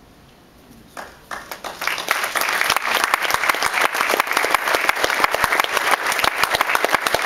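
An audience bursts into applause about a second in. The clapping builds quickly and keeps going.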